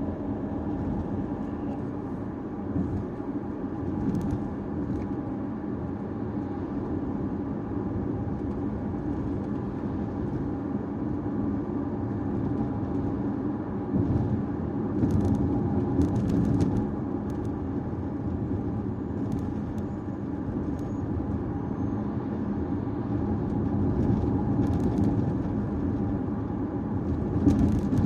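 Caoa Chery Tiggo 5x driving steadily: a continuous engine and road rumble, with a few brief sharp clicks scattered through it.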